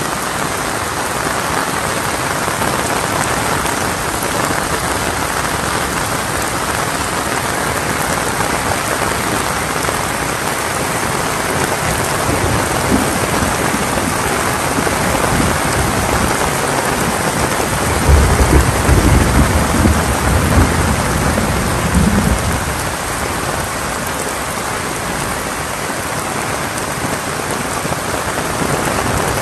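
Steady heavy rainfall. A louder low rumble with uneven peaks rises over it for about four seconds past the middle.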